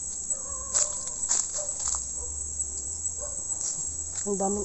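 Steady high-pitched chorus of forest insects, with a few short crackles in the first two seconds.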